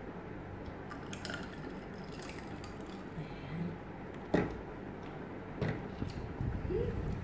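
Cola poured from a plastic bottle into a glass, with the bottle and dishes knocking on the tabletop; the sharpest knock comes about four seconds in.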